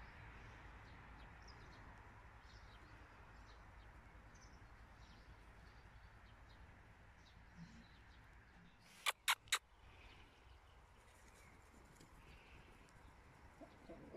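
Faint farmyard ambience with scattered faint bird chirps. About nine seconds in, three sharp clicks come in quick succession, louder than anything else.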